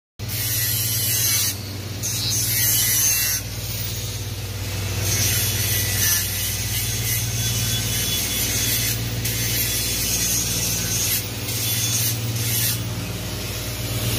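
Steady low machinery hum with a loud hiss over it, the hiss stepping up and down in level every second or two.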